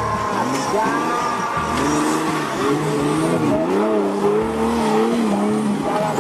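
Off-road buggy engines revving under load, the pitch swinging up and down over several seconds as the throttle is worked through a steep dirt climb.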